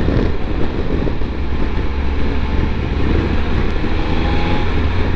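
Triumph Tiger 1200's three-cylinder engine running at a steady cruise, with wind rumbling over the helmet-mounted microphone.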